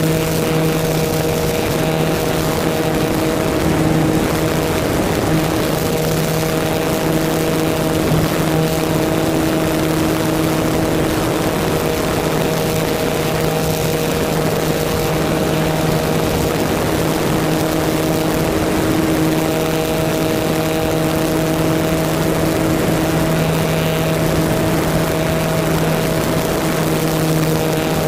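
Motor and spinning propeller of an RC model airplane, heard from a camera mounted on the plane: a steady hum made of a few even tones over a rush of airflow noise.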